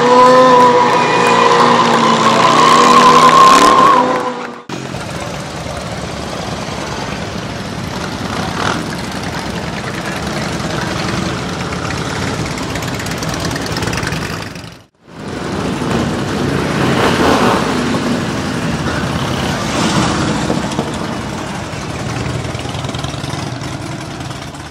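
Stunt motorcycle engines held at high revs during smoky burnouts, a steady high engine note. After a sudden cut, motorcycles rumble slowly along a street lined with parked bikes, with engine swells as bikes ride past.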